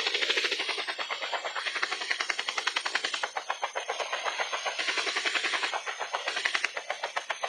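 Helicopter rotor chopping in a fast, even beat of about ten blade beats a second, with a faint high steady whine above it.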